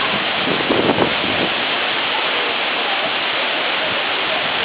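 The El Limón waterfall's steady rush of water falling into its pool, with a brief louder sound about a second in.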